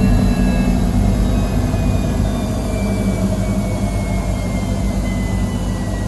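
Samsung Ecobubble Digital Inverter 8 kg front-loading washing machine in its final high-speed spin: the drum hums steadily under a faint whine that slowly falls in pitch as the spin starts to wind down.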